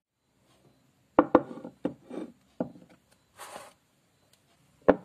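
Several sharp knocks and taps of objects being handled and set down on a table, with a short rustle about three and a half seconds in and one more knock near the end.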